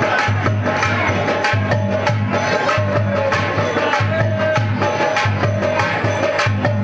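Loud folk music with a drum beat and jingling percussion under a wavering melody line.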